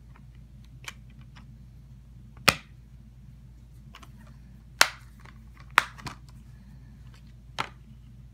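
Plastic Blu-ray case being handled: four loud sharp clicks and snaps, spread over the few seconds the disc is pressed onto its hub and the case is closed, with fainter ticks and rustles between them.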